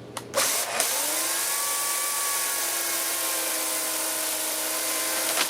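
Two-stroke chainsaw engine revving up in the first second, then running at a steady high speed.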